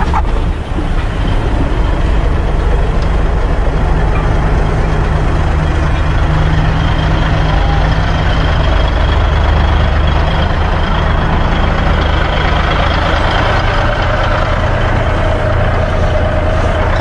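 Heavy semi-truck diesel engines idling close by, a steady low rumble.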